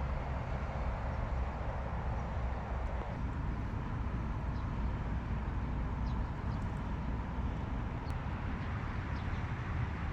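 Hooded crow giving a few faint, short clicks, scattered and irregular, over a steady low background rumble.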